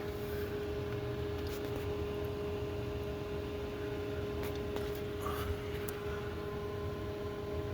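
A steady machine hum, with a few faint clicks.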